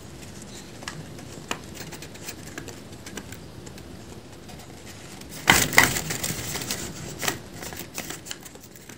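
Folded paper dragon puppet worked by hand, its paper jaws clacking and rustling in scattered small clicks. A louder double crinkle comes about five and a half seconds in.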